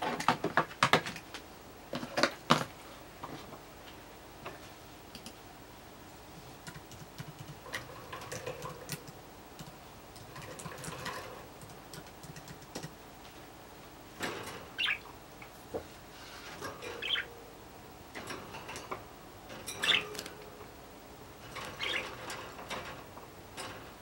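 Pet budgerigars in wire cages: scattered sharp clicks and taps, loudest in the first couple of seconds, with a few short chirps in the second half.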